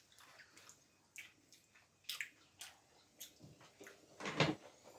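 Faint, wet chewing and mouth clicks of someone eating a soft, sugar-coated gummy sweet, with one louder mouth sound about four seconds in.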